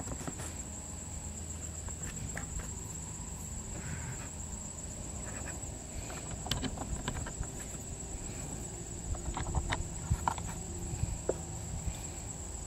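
Small clicks and taps of a plastic battery-pack housing and small screws being handled and fitted into a wooden rifle stock, coming more often in the second half. A steady high insect drone runs underneath.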